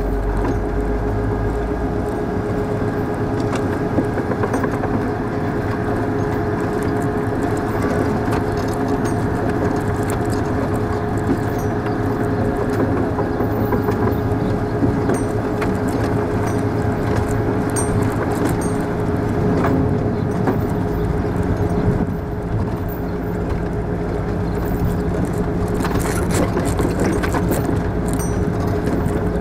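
Armoured military patrol vehicle driving on a dirt road, heard from its open gun turret: steady engine and drivetrain noise with a constant whine and scattered rattles and clicks. The low engine note shifts twice.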